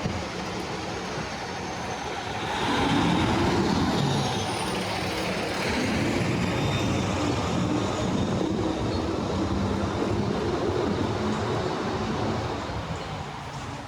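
A large vehicle going by on the street: a low, engine-like rumble that swells about two and a half seconds in, holds, then fades near the end.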